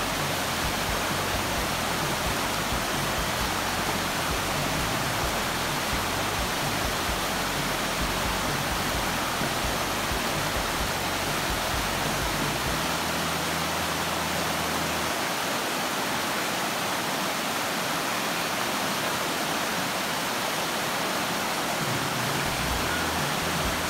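Rushing whitewater of a mountain creek running over rocks: a steady, even rush.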